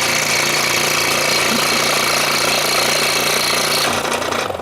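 Scroll saw running, its fine blade cutting through a wooden jigsaw puzzle in a steady, rapid buzz. The cutting noise stops about four seconds in and the saw's hum dies away just after.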